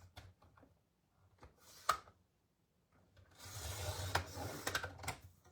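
Paper being handled with a few clicks and taps, then a paper trimmer cutting a strip of cardstock: a rasping slide of about two seconds with small clicks in it.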